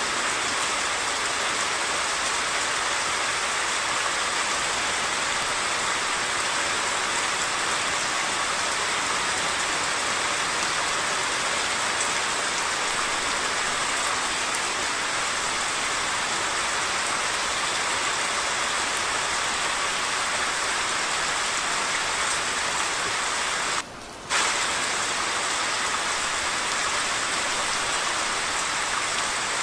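Steady hiss of heavy monsoon rain, mixed with the rush of a flood-swollen stream, cut off once for about half a second near the end.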